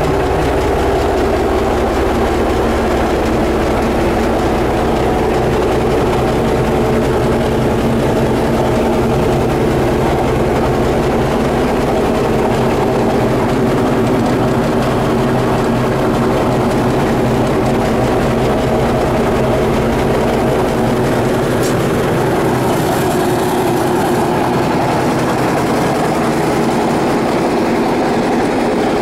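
1977 Caterpillar D8K crawler dozer's six-cylinder diesel engine running steadily, a heavy, even drone.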